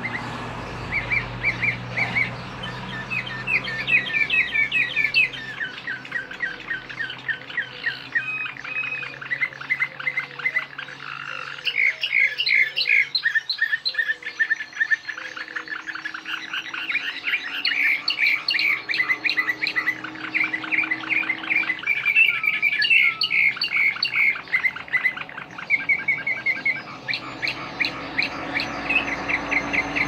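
Serbian Slavujar song canary singing a long, unbroken song of rapid trills and quickly repeated chirping notes, its phrases changing every few seconds.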